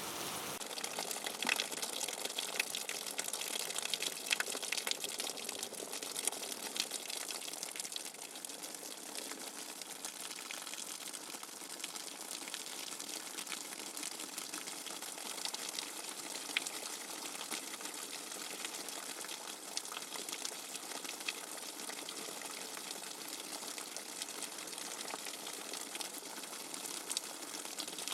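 Steady water-like hiss sprinkled with many small crackles and ticks, holding an even level throughout: a white-noise sleep recording.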